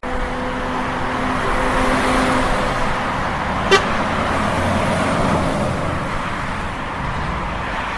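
Street traffic ambience: cars running past over a steady hiss of road noise, with one short horn toot a little before four seconds in. It is a sound-effect bed that starts and stops abruptly.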